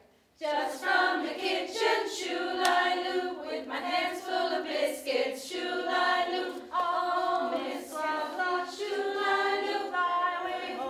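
A group of women singing a singing-game song together, unaccompanied, in sustained phrases; the singing starts about half a second in after a short pause.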